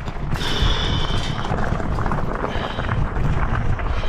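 Engwe full-suspension folding electric bike ridden over rough, muddy ground: continuous rattling and knocking from the bumps, with wind buffeting the microphone and a high whine that comes and goes twice.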